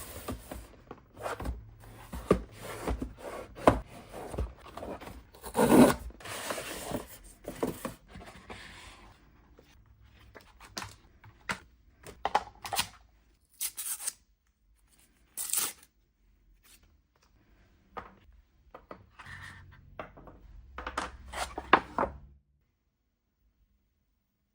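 A camera box being unboxed by hand: tearing of a seal or wrap, rubbing and scraping of cardboard and plastic, and many small clicks and knocks. The handling sounds stop a couple of seconds before the end.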